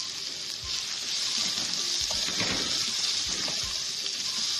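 Sliced onions sizzling in hot oil in a metal karahi, a steady hiss, with a wooden spatula knocking and scraping against the pan several times as they are stirred.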